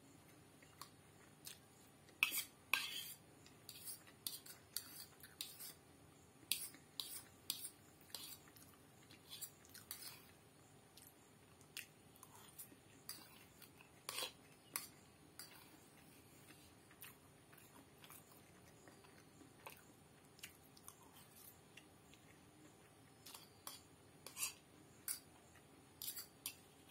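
A metal fork clinking and scraping against a ceramic plate of noodles, in short, irregular taps with pauses between.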